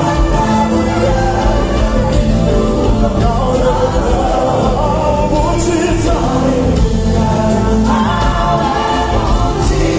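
A group of singers singing together into microphones over a live band of drums, electric guitars and keyboard, steady and loud through the hall's sound system.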